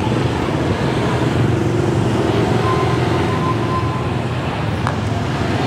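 Street traffic close by: small motorcycle engines and a motorcycle-sidecar tricycle running past, a steady engine drone over road noise.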